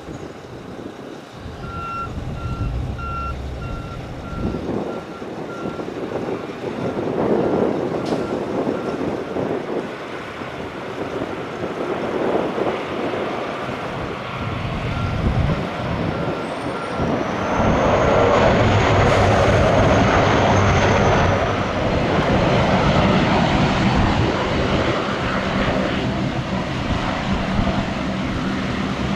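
De Havilland Canada Dash 8-400 turboprop's engines and propellers running as it rolls out on the runway, swelling louder with a high whine about two-thirds of the way through, over wind buffeting the microphone. A ground vehicle's backup alarm beeps about twice a second through the first half.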